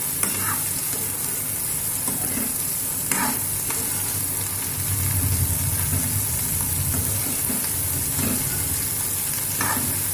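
Chopped okra and onions sizzling in hot oil in a kadhai while a metal spatula stirs them, with a few sharp scrapes of the spatula against the pan.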